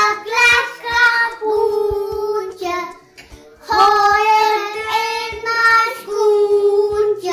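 Children singing a song, in long held notes, with a short break about three seconds in.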